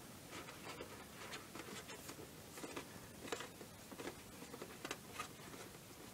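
Hands pressing and pinching Play-Doh on a metal baking tray: faint, irregular light taps and rubs of fingers on the dough and tray.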